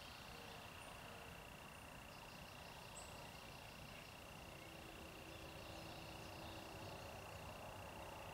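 Quiet waterside ambience: a steady high-pitched insect drone throughout, with a few faint, brief bird chirps.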